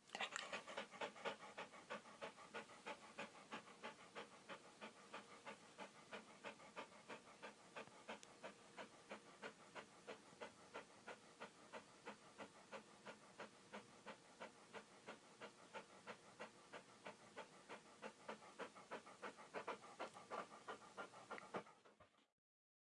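A dog panting steadily: quick, rhythmic breaths at about four a second, which fade out near the end.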